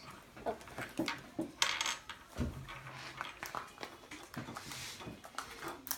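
Small clicks, taps and rustles of plastic toy capsules and wrappers being handled on a wooden table, with a dull knock about two and a half seconds in.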